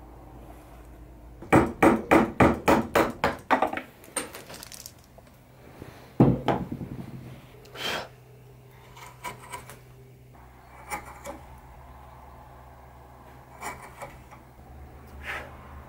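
Chisel driven into a wooden toy-horse blank: a quick run of about eight sharp knocks, then one louder knock a couple of seconds later. Quieter scraping and clicking of a blade on the wood follow.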